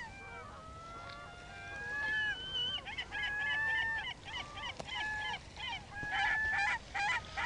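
Several seagulls squawking over one another. A few long, drawn-out calls come first, then many short, overlapping squawks that grow louder toward the end.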